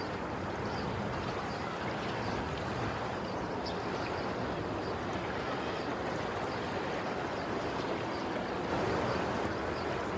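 Ocean waves washing in a steady rush of surf, swelling slightly near the end.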